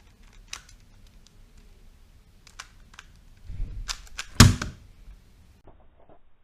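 3x3 Rubik's cube being turned with one hand: scattered sharp clicks of the plastic layers snapping round, over a low rustle of handling, with a heavier knock about four and a half seconds in, the loudest sound.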